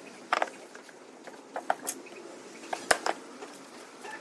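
Light clicks and knocks of an alternator's metal housing and parts being handled on a workbench, in three short clusters, the sharpest about three seconds in.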